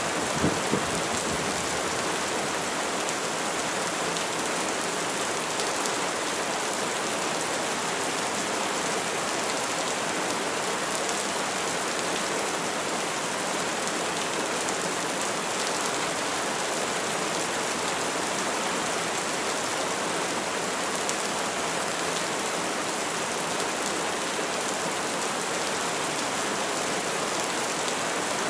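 Steady, even rain with a dense hiss. The last of a thunder rumble trails off in the first second.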